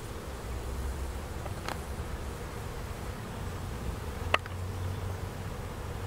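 A swarm of honey bees buzzing in a steady hum as they cluster on and fly around a small box. Two sharp clicks cut through it, a faint one about a second and a half in and a louder one past the four-second mark.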